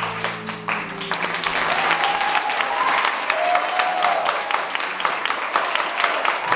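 Audience applauding with dense hand-claps and some cheering voices. The last held chord of the dance music dies away about a second in.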